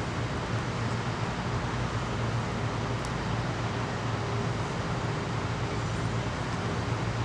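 Steady low mechanical hum under an even hiss, with no distinct events.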